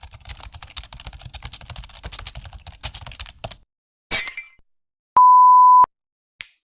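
A string of separate editing sound effects: for about three and a half seconds a rapid clatter of keyboard typing over a low rumble, then a short noisy burst, then a loud, steady, pure-tone censor bleep lasting well under a second, and a brief swish near the end.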